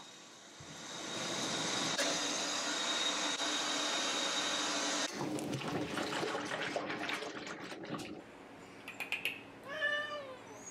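Water running steadily into a plastic tub, then a hand swishing and splashing the foamy shampoo water for a few seconds. Near the end a Persian cat gives one short meow.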